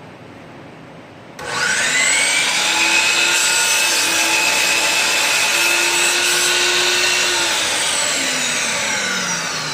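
An electric woodworking saw's motor switched on, spinning up quickly to a steady whine, running for about six seconds with a slight dip in pitch about four seconds in, then switched off and winding down with a falling pitch.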